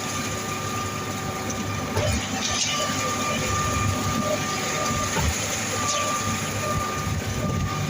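Concrete pumping machinery running steadily while ready-mix concrete is pumped, with clunks every second or two and a high whine that comes and goes.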